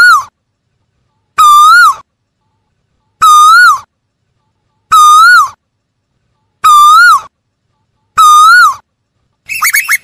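Asian koel calling: six loud whistled calls, evenly spaced about every second and a half to two seconds, each a single slurred note that rises and then drops away. Near the end a fast run of shorter, higher notes begins.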